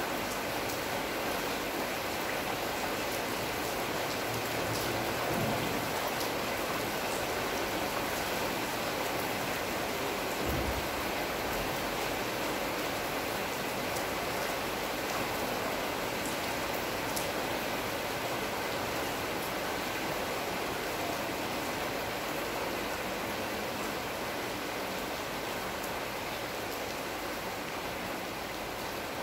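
Steady rain falling on tree foliage, an even hiss with occasional sharper drop ticks. A brief low bump sounds about ten seconds in.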